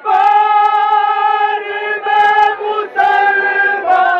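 A noha, the Shia mourning lament, chanted by voices in unison in long held notes with brief breaks between phrases.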